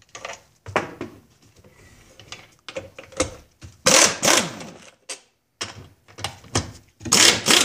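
Cordless impact driver with a long screwdriver bit backing out the screws that hold the halves of an outboard motor's housing together. It runs in a series of short bursts, its motor pitch rising and falling with each one.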